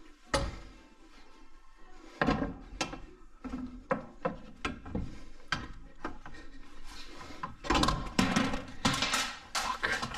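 Irregular metal clunks and knocks as a compressed front coil spring, held in a spring compressor, is worked by hand into a lower control arm. A sharp knock comes right at the start, and the knocks come thicker in the last few seconds.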